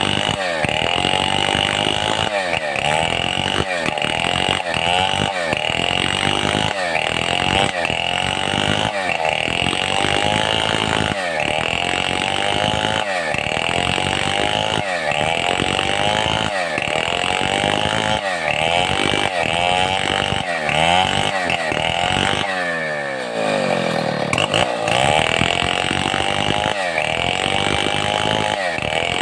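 Stihl 070 two-stroke chainsaw running hard while ripping a mahogany log lengthwise into boards. Its pitch rises and falls in a steady rhythm, a little over once a second, as the bar works through the cut. Near the end it briefly drops in revs, then picks back up.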